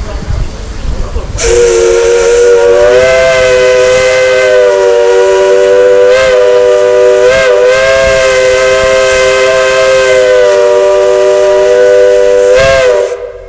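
Steam locomotive whistle blown in one long blast of about twelve seconds, sounding a chord of several tones at once. It holds steady apart from a few brief wavers in pitch, then cuts off.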